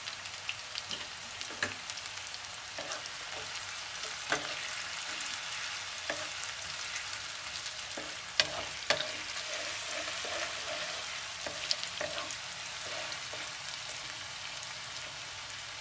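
Chopped onion, ginger and garlic sizzling steadily in hot oil in a kadhai as they are stirred, with a few sharp clicks.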